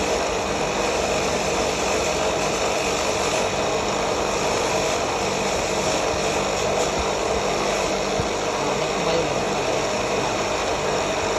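A steady mechanical whir from a running motor, even in level throughout.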